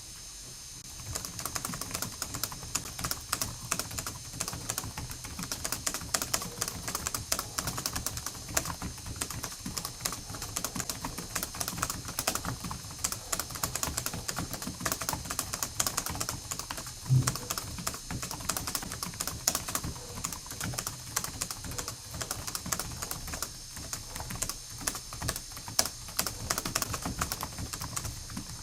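Continuous fast typing on a computer keyboard, many keystrokes a second, with one heavier low thump about 17 seconds in.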